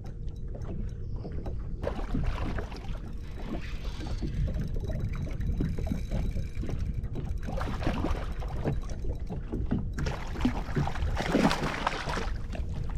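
Water splashing and lapping against a fishing boat's hull, with a steady low wind rumble on the microphone and louder rushes of splashing about two seconds in and again near the end.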